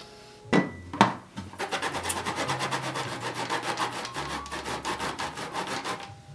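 Lemon being zested on a plastic hand grater: rapid, even rasping strokes of the rind across the grating blade. Two sharp knocks come just before the grating starts.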